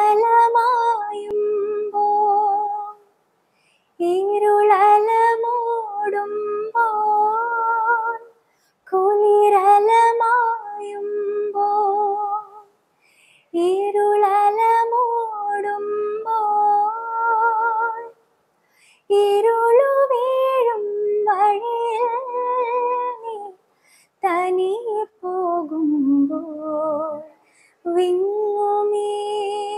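A young woman singing solo and unaccompanied: a slow Malayalam film lullaby, in phrases of three to five seconds with short pauses for breath between them.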